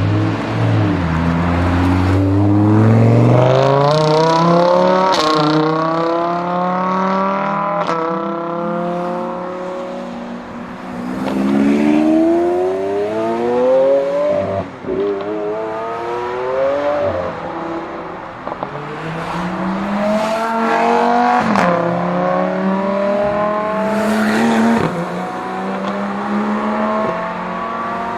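High-revving sports car engine accelerating hard, its pitch climbing and then dropping sharply at each upshift, in several runs through the gears.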